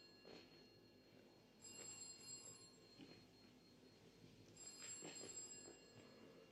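Faint telephone ringing in repeated bursts, each about a second long and about three seconds apart, with soft footsteps.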